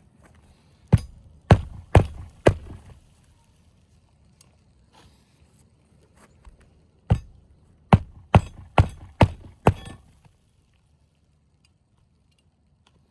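Hand hammer driving roofing nails through asphalt shingles: four sharp strikes about two a second, a pause, then six more in quick succession.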